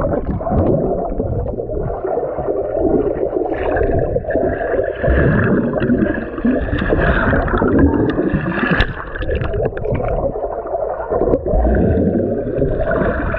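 Water gurgling and sloshing, continuous and muffled.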